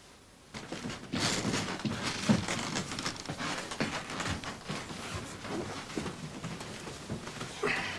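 Clothing rustling, shuffling steps and soft knocks of people handling and lifting someone. It is a dense, irregular rustle that starts about half a second in.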